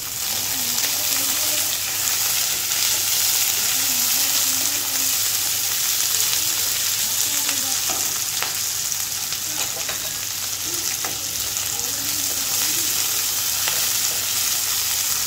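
Chopped onion, capsicum and tomato sizzling in hot oil in a non-stick wok, stirred and scraped with a wooden spatula. The steady frying hiss carries a few sharp clicks of the spatula against the pan.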